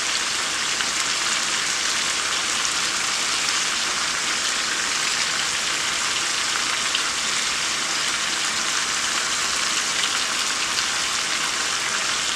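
Chicken and sausage sizzling in a pot on high heat: a steady, even frying hiss with faint scattered crackles.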